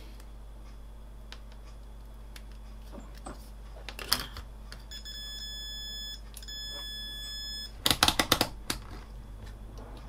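Two long, steady electronic beeps, each just over a second with a brief gap between, from about five seconds in, followed by a quick clatter of small clicks from handling on the bench.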